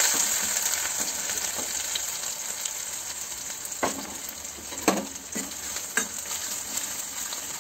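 Chopped onion sizzling in hot mustard oil in an iron kadhai, loudest as it goes in and slowly easing. In the second half a metal ladle stirs and knocks against the pan three times.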